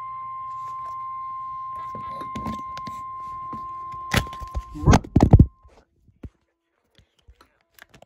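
Weather-radio warning alarm tone on a TFT EAS decoder: one steady high tone that cuts off about five and a half seconds in. Several loud knocks and clatter come around four to five seconds in, and after them only faint clicks.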